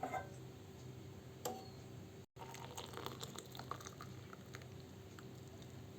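Herbal kadha simmering in a pot, faint bubbling with scattered small pops over a low steady hum. The sound cuts out for an instant a little past two seconds in.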